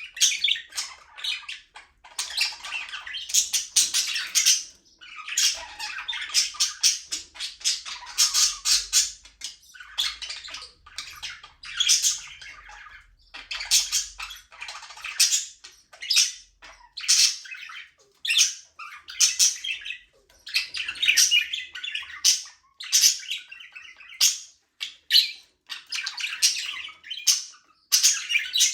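Budgerigars chattering and chirping in an aviary: rapid, high-pitched warbling and squawks in bouts of a second or two, with short pauses between.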